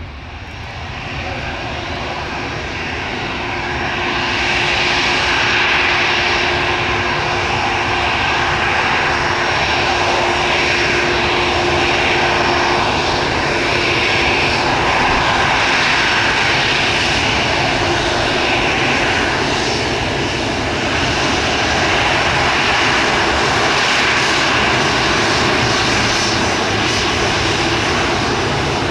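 Airbus A319 airliner's two jet engines at taxi power, a steady rushing whine with a high whistle. It grows louder over the first four seconds as the jet taxis close by, then holds steady.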